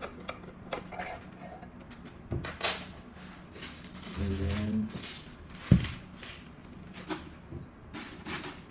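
Light scattered clicks and knocks of a screwdriver and loose screws being handled on a ceiling fan's motor housing, with a brief low hum about four seconds in and a sharper knock just before six seconds.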